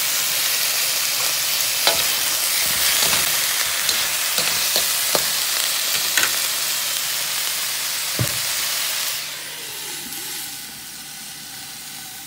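Potatoes, carrots and celery sizzling in a metal pot as they are stirred, with scattered clicks of the spoon knocking the pot. About nine seconds in the sizzle drops and turns quieter, as with a glass lid put on the pot.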